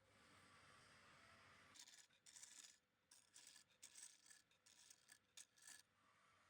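Faint scratchy rubbing strokes, about a dozen in an irregular quick run starting about two seconds in, over a low hiss.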